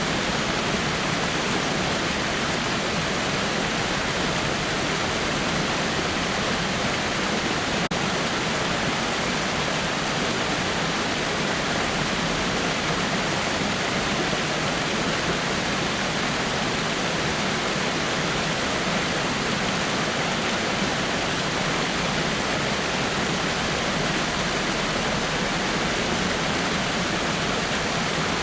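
Water falling over rocks in a waterfall: a steady, even rush of water that does not change.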